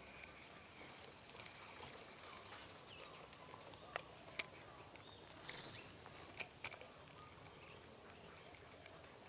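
Faint outdoor ambience with a steady high hum, broken by a pair of sharp clicks about four seconds in, a short rustle a little later, and two more clicks just after it.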